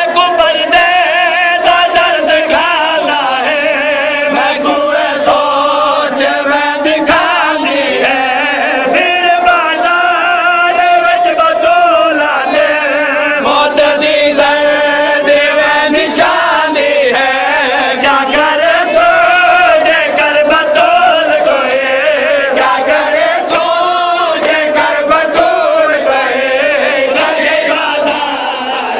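Group of men chanting a noha, a Shia mourning lament, in unison with long, wavering held notes. The chant is crossed by sharp slaps, the chest-beating of matam.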